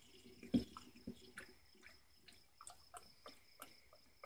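Motor oil glugging from a plastic bottle into a plastic funnel in an engine's oil filler: a faint, irregular run of gurgles and drips with one louder glug about half a second in.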